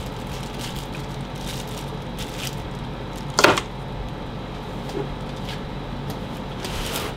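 Packaging being handled in and around a large cardboard box: faint rustles and light knocks, with one short, loud rustle about three and a half seconds in, over a steady low hum.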